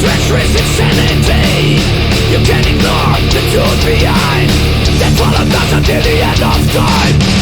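Heavy thrash metal music playing loudly and without a break: distorted guitars and drums, with shouted vocals.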